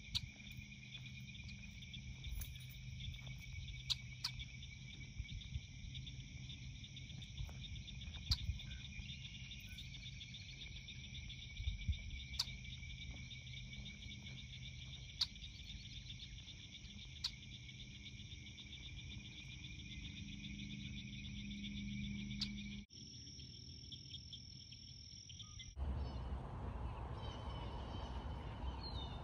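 Steady chorus of insects calling, with a low steady hum underneath and a few sharp clicks. Near the end it cuts off and gives way to a steady rushing noise.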